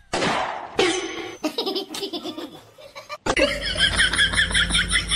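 Laughter in short rhythmic bursts; about three seconds in it cuts to a louder, higher-pitched run of laughter over a low hum.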